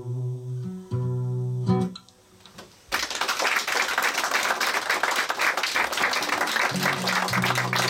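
Acoustic guitar playing the closing chords of a song and letting them ring, then, after a short hush about two seconds in, audience applause for the rest, with a few low guitar notes under it near the end.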